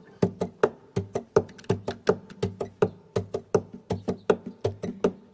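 Rhythmic knocking on wood, about three knocks a second, over a faint low ringing tone.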